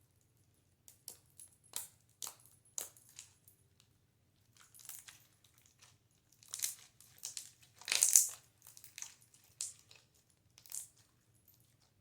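Clay slime with foam balls being stirred with a stick in a bowl: irregular clicking and crackling in short bursts, loudest about eight seconds in.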